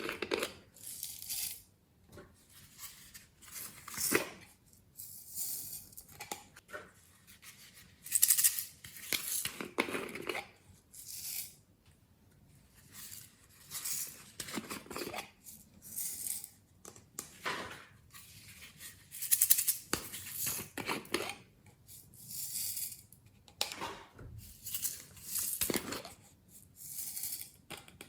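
Glossy slime with clay mixed in, squeezed and stretched by hand: irregular sticky, crackly squishes that come in short bursts a second or two apart.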